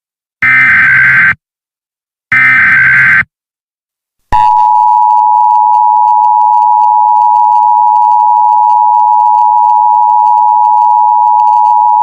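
Two bursts of Emergency Alert System SAME header data tones, each a harsh warbling screech about a second long, the last two of the three that open an alert. About four seconds in, the EAS two-tone attention signal starts and holds steady.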